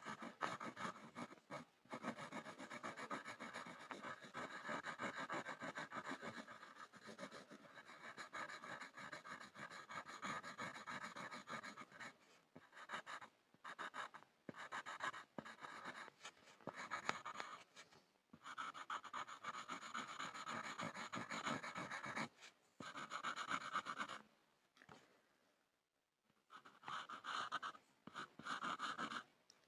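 Pencil scribbling on a board: rapid scratching in long stretches broken by short pauses, with a longer pause a few seconds before the end.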